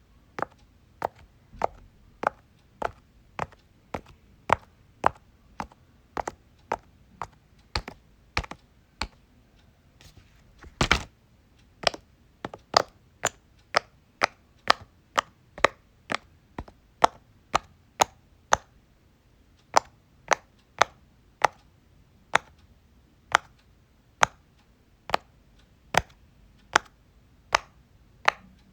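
Silicone pop-it fidget toy bubbles being pressed one after another, each giving a short, sharp pop at just under two a second. A little over a third of the way in, a louder cluster of pops comes in quick succession.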